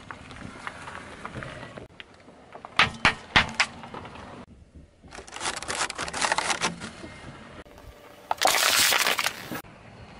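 A car tyre rolling slowly over small objects one after another and crushing them: a few sharp cracks about three seconds in, dense crackling and crinkling in the middle, and a loud, steady rushing noise lasting over a second near the end.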